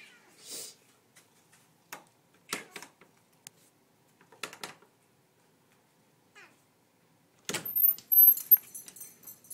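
Domestic cats meowing at a closed door, two short meows a couple of seconds apart. Near the end comes a loud clack and then a high squeaking rattle as the door is unlatched and opened.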